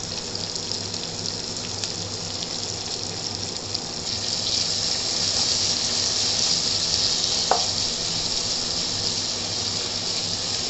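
Sliced onions and green chillies sizzling steadily in hot oil in a non-stick kadai while being stirred with a wooden spatula, the sizzle growing a little louder about four seconds in. One short squeak about seven and a half seconds in.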